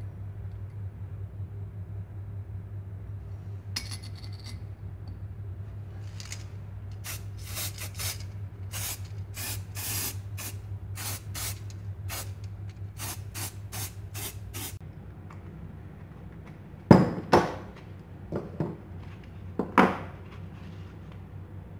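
Aerosol spray-paint can spraying metal clamps in many short bursts, a few hisses a second. Near the end come a few loud knocks and rustles, the loudest sounds here.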